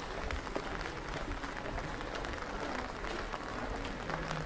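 Light rain falling and dripping: a steady, dense, irregular patter of small drops.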